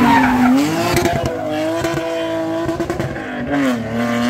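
Rally car engine running hard at high revs close by. Its note dips briefly about half a second in and again near the end, then holds steady and high.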